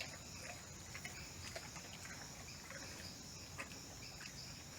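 Rainforest insects buzzing steadily at a high pitch, with scattered faint clicks and crackles.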